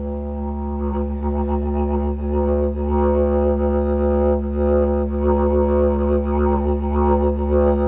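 Lightweight didgeridoo being played: a steady low drone with rhythmic, shifting overtones above it, growing louder and busier about a second in.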